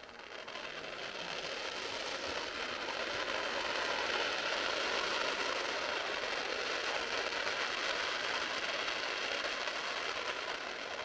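Fireworks crackling with a steady, dense hiss that swells over the first few seconds, then eases slightly near the end.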